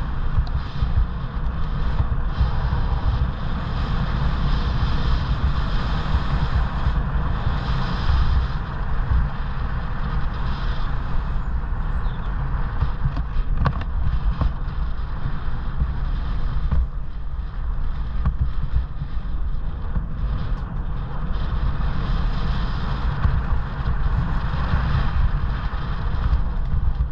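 Wind buffeting the microphone of a moving e-bike, over the rumble and crunch of its tyres rolling on a gravel and dirt track, with a few sharp ticks of stones.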